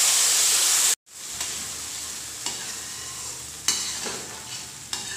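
Wet ground masala paste of tomato and cashew hitting hot ghee in a kadhai and sizzling loudly, cut off abruptly about a second in. Then a quieter steady sizzle as a slotted steel spoon stirs the paste, with a couple of sharp scrapes against the pan.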